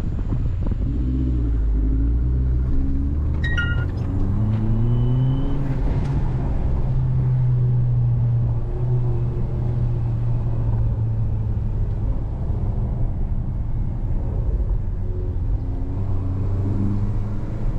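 Beijing X7's 1.5-litre turbo engine and custom catback exhaust under hard acceleration: the engine note rises in pitch, drops at a gear change and rises again, then holds a steady drone for several seconds before climbing once more near the end.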